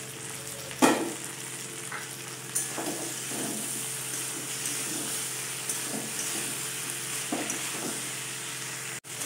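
Mixed vegetables sizzling in an aluminium kadai while a metal spatula stirs and scrapes them against the pan. There is one sharp clank about a second in, and repeated scraping strokes from about three seconds in.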